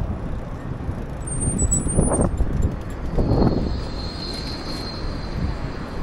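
City street traffic going by, with swells as vehicles pass about two and three seconds in. A thin high whine joins about halfway through.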